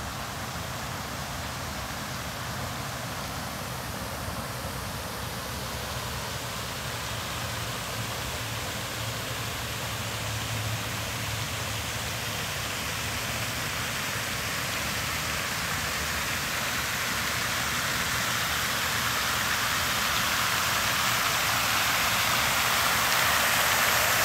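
Water fountain's tall jet falling and splashing into its round basin: a steady rushing hiss of water that grows steadily louder as it is approached.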